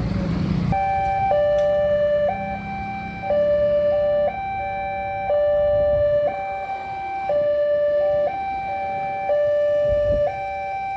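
Railway level-crossing warning alarm starting under a second in: an electronic two-tone signal alternating between a high and a low tone about once a second, warning that a train is coming and the barrier is closing.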